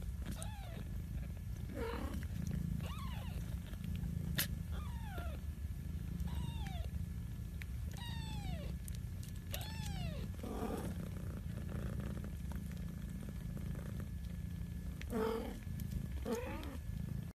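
Young kitten mewing over and over: about a dozen short, high calls, each falling in pitch, with a pause midway. A steady low rumble lies under the calls.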